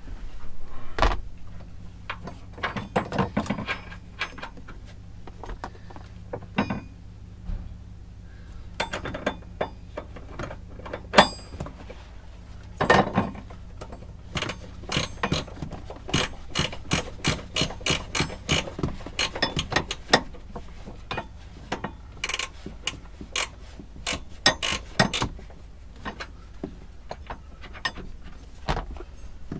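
Hand ratchet wrench clicking as seat belt anchor bolts are run in: scattered clicks at first, then quick runs of several clicks a second through the middle, over a faint steady low hum.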